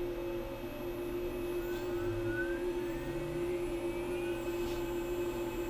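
6040 CNC router running a program: the spindle gives a steady whine, and the axis stepper motors add a whine that rises in pitch as the axes speed up, from about two seconds in.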